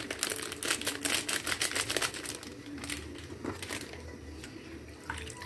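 Plastic packet of ground coriander crinkling and clicking in the hand as the powder is shaken out into a wok of water. It is a quick run of small clicks and rustles over the first two seconds or so, thinning out to a few scattered clicks.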